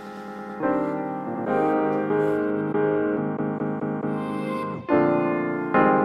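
Background music: sustained chords on a keyboard-like instrument, with a new chord struck about every second.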